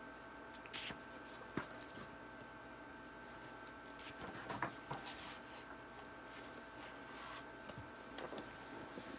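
Paper pages of a thick book being handled and turned: a few soft rustles and light taps, with a faint steady hum underneath.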